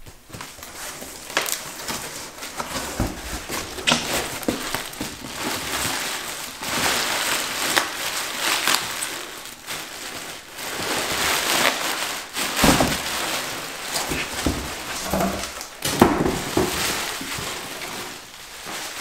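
Hands rummaging through polystyrene packing peanuts in a cardboard box and crinkling the plastic wrap around a heavy part: a continuous rustle with many sharp crackles.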